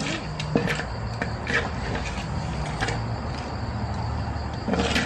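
Night background of a steady low hum and a thin, continuous cricket trill, with scattered light clicks and knocks of dishes and utensils being handled; a sharper click comes near the end.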